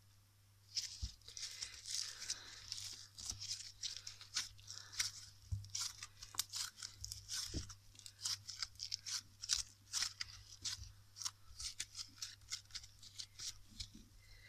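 Orange crunchy bead slime, snow slime mixed with crisp slime, being squeezed and stretched by hand: a fast, irregular run of crackles and little pops from the beads starting about a second in.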